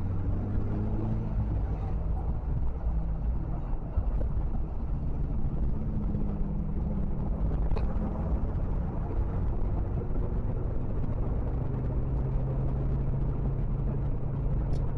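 Vehicle engine running while driving, its low hum rising and falling slightly in pitch, under steady road and wind noise.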